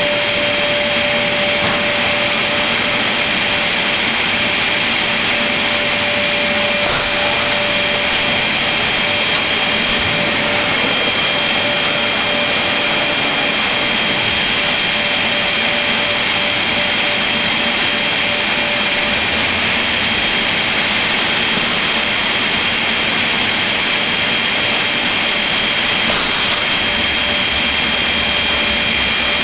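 Automatic MDF board cutting machine running: a steady, loud whirring noise with a constant high whine over it.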